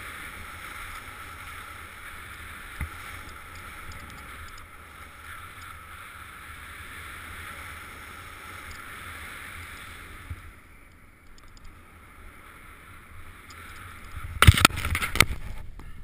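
Snowboard riding through fresh powder snow: a steady hiss of snow and rushing air on the camera microphone, which goes quieter about ten seconds in. Near the end, a burst of loud knocks and rubbing as something bumps against the camera.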